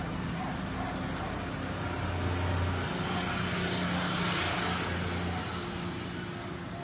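A motor vehicle's engine passing, a steady low hum under a rush of noise that swells about three seconds in and eases off near the end.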